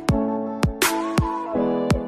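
Background music with a steady beat: drum hits about twice a second over sustained keyboard chords.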